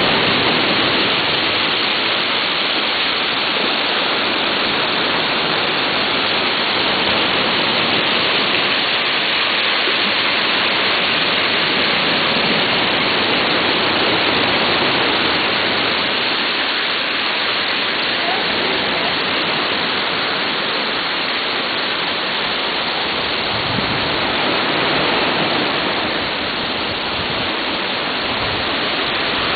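Steady rushing of a waterfall plunging into a pool, heard as an even, unbroken roar of water with a slight dip in loudness near the end.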